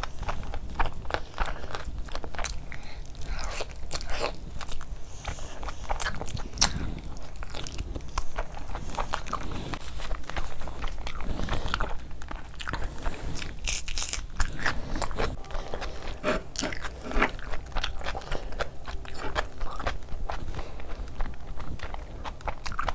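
Close-miked ASMR eating: a person chewing and biting chicken curry and fufu with a full mouth. Many sharp, irregular clicks and smacks follow one another without a pause.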